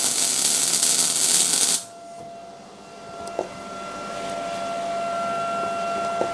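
MIG welding arc burning on steel, a dense hissing crackle, with the Jasic MIG-200D's inductance at its middle setting; it stops abruptly just under two seconds in. After it, a quieter steady high tone with a couple of small clicks.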